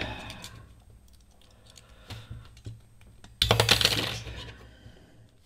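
A small metal tool scraping and clicking in a quick burst a little over three seconds in, with fainter scraping after it: a screw hole being widened by hand so a fan screw will pass through.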